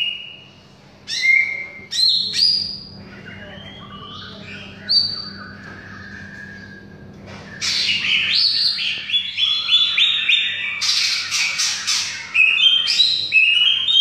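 Cucak ijo (green leafbird) singing: quick whistled phrases with sliding pitch, a quieter lull in the middle, then a fast, dense run of song from about halfway through to the end.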